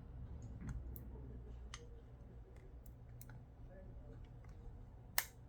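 Scattered light clicks and taps from handling an iPad 2 and its replacement screen during reassembly, with one sharper click about five seconds in, over a steady low hum.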